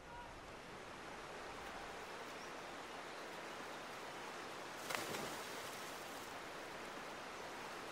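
Steady rushing of running water from a stream, with one brief sharper noise about five seconds in.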